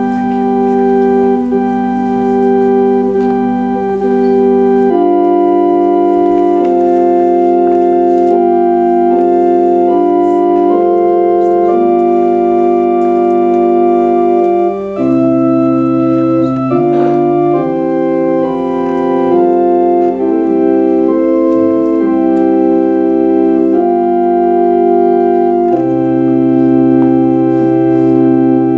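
Organ music: slow, sustained chords held for a second or several and changing together, with a deeper bass note entering about halfway through.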